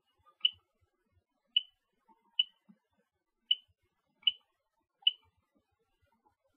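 Keys being pressed on a cordless phone's keypad while dialling a number: six short, high key beeps, about one a second.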